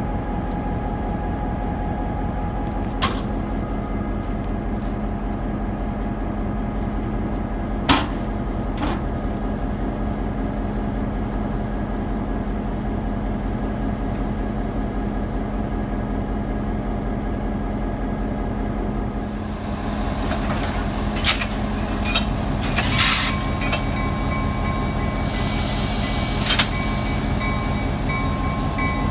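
EMD GP38-2 diesel-electric locomotive, with its 16-cylinder EMD 645 engine, idling close by as a steady drone. A few sharp metallic clanks come through, and a hiss starts about 25 seconds in.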